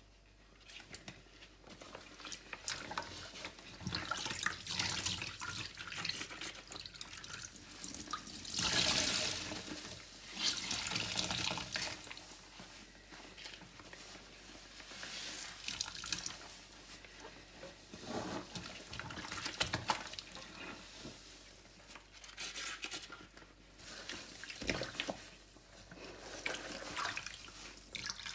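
Wet sponge soaked in floor-cleaner solution squeezed again and again, liquid squelching and dripping out in uneven swells. The loudest squeezes come about a third of the way in.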